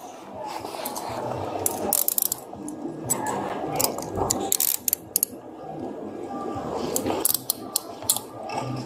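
Metal handcuffs being ratcheted shut: several runs of quick clicks, over a muffled rustle of clothing against a body-worn camera.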